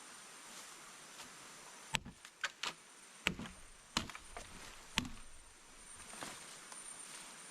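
A handful of sharp knocks and clatters, about six between two and five seconds in, from handling or chopping at camp. Behind them a steady high-pitched insect whine.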